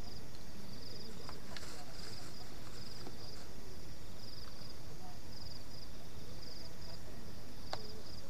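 Night insects chirping, short pulsed trills repeating about once a second, with a few faint clicks of small items being handled.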